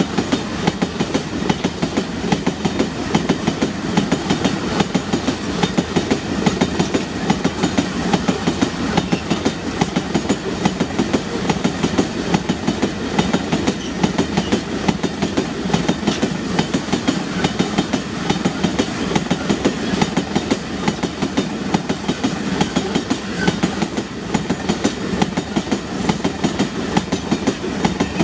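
Iron-ore freight train's wagons rolling past close by: a steady rumble of steel wheels on rail with a quick, regular clatter over the rail joints.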